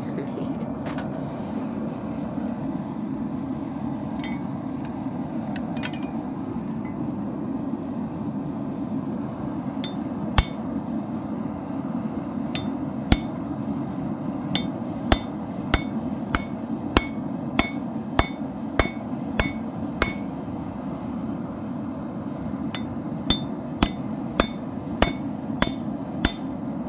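Hand hammer striking a steel chisel held in a red-hot railroad spike on the anvil, cutting the eye slot of a tomahawk: two single blows, then an even run of about ten strikes, a pause, and about eight quicker ones, each with a short metallic ring. Under the blows the propane forge burner runs steadily.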